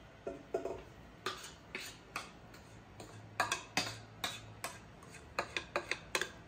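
Irregular light clicks and taps of a glass mixing bowl and utensil against a stainless-steel stand-mixer bowl as batter is poured in, coming faster near the end.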